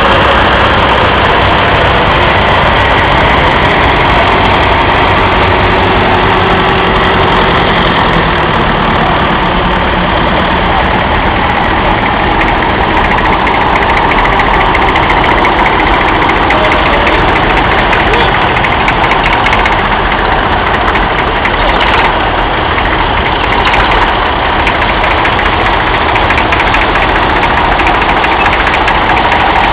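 Vintage tractor engines, a grey Ferguson, a red Massey Ferguson and a Massey Ferguson 135, running loudly and steadily as the tractors drive slowly past one after another.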